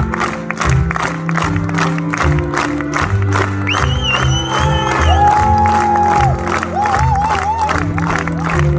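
Loud live music with a steady beat of about four strokes a second over a moving bass line, amid a crowd. A high held note comes in about four seconds in, followed by a wavering sung line near the seven-second mark.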